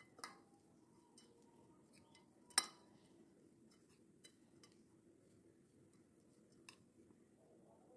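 Metal spoon clinking and scraping against a plate while stirring a dry crumbled roti mixture: a few sharp clinks, the loudest about two and a half seconds in, with fainter ticks between, over a faint steady hum.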